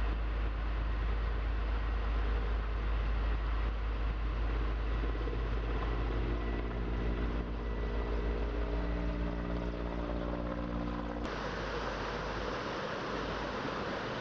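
A heavy engine running with a deep rumble and a steady hum. Near the end the sound cuts off suddenly and a steady rushing noise takes its place.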